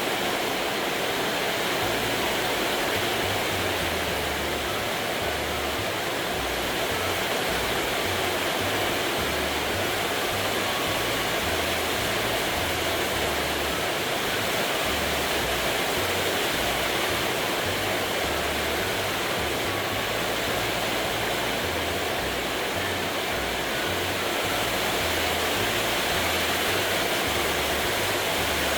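A steady, even rushing noise with low bass notes shifting step by step underneath, like soft background music over a noise bed.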